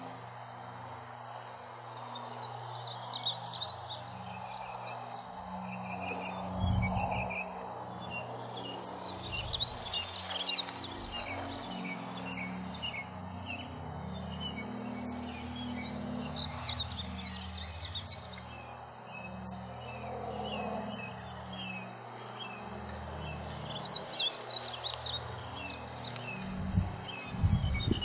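Summer field ambience: insects trilling steadily, with a bird singing a short chirping phrase about every seven seconds.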